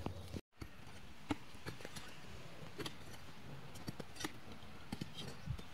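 Hand hoes digging into dry soil: irregular light knocks and scrapes of metal blades striking the ground, a few a second.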